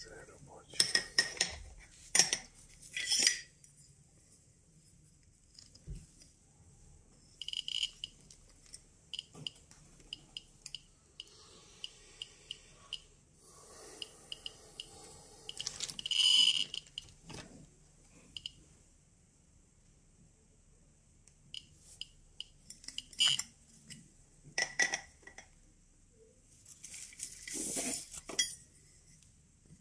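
Metal Geiger-Müller counter tubes and alligator clips clinking and rattling as they are handled and swapped on a test rig, in several short clusters of sharp clinks.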